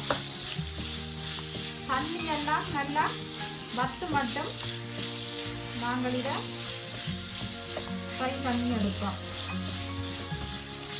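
Marinated chicken pieces sizzling in hot oil in a frying pan, stirred with a wooden spatula. Held and sliding musical notes sound faintly underneath.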